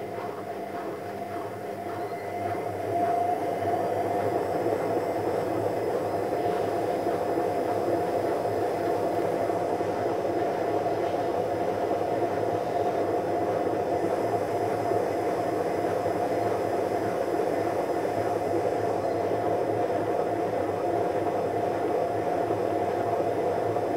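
Electrolux washing machine running with a steady mechanical hum and a held whine, growing louder about two to three seconds in and then staying level.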